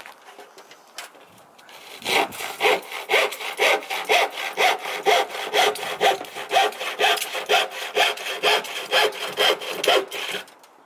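Handsaw cutting through plywood in quick, even back-and-forth strokes, about three a second, starting about two seconds in and stopping just before the end.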